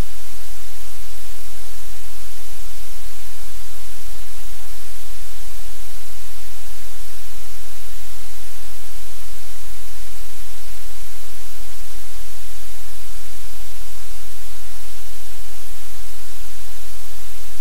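Loud, unchanging static-like hiss with a strong low hum beneath it; no distinct events stand out.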